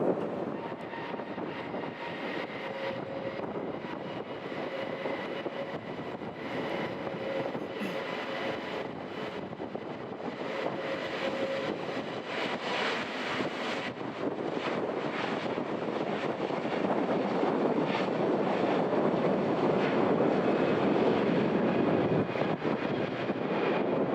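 Airbus A321neo jet airliner with Pratt & Whitney geared turbofan engines passing by. Steady engine noise with a few steady whining tones, growing louder through the second half as the aircraft comes closer.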